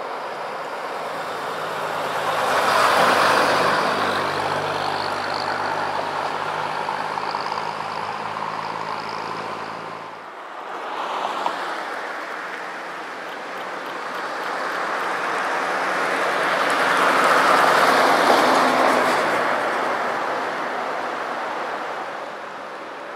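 Road vehicles passing close by twice, each a swell of engine and tyre noise that builds and fades away; the first pass carries a steady low engine drone.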